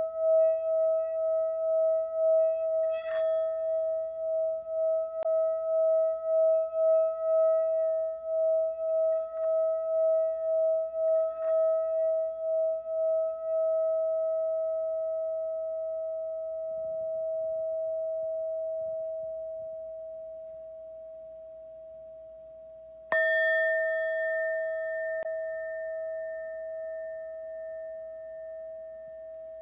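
Singing bowl ringing with a wavering, pulsing hum that slowly fades. About three-quarters of the way through it is struck again, and the new ring with a brighter overtone slowly fades.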